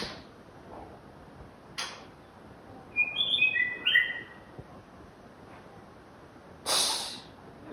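White-rumped shama singing in separate phrases: a short harsh note about two seconds in, a quick run of short clear whistled notes a second later, and a loud harsh, noisy call near the end.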